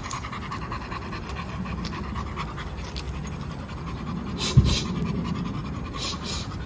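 A pit bull panting steadily, with a single sharp thump about two-thirds of the way through.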